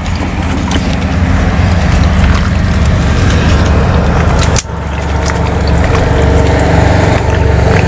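Engine running at a steady, loud drone, with a brief dip in level about halfway through.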